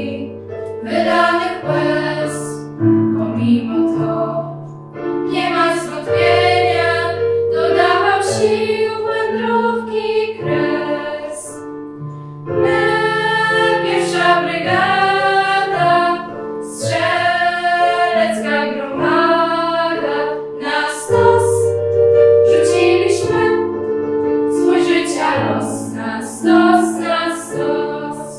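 A choir of girls' voices sings a song together in phrases, over a sustained instrumental accompaniment.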